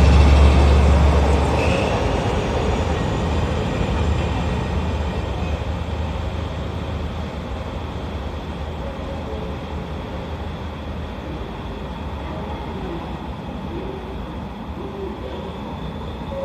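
A train with coaches rolling slowly past. The low hum of the leading diesel locomotive's engine fades away in the first two seconds, leaving the rumble of the coaches' wheels on the rails, which slowly dies away as the train passes.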